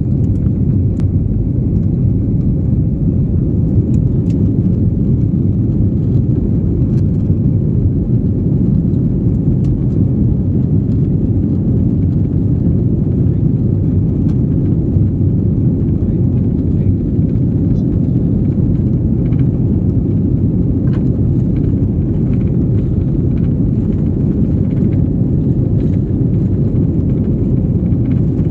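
Jet airliner rolling along the runway, heard from inside the cabin: a steady low rumble of engines and wheels, with a few faint clicks.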